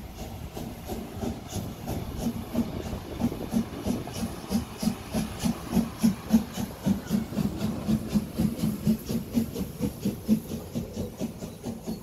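Narrow-gauge steam locomotive working, its exhaust chuffing in an even rhythm of about three beats a second, each beat with a hiss of steam.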